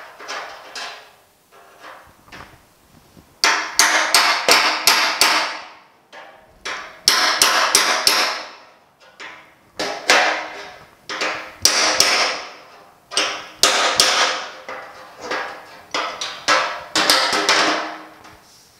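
Hammer blows on the steel running board of a 1950 Chevy truck, knocking out a low spot in a dent. A few light taps come first, then from about three and a half seconds quick bursts of several strikes each, with a metallic ring.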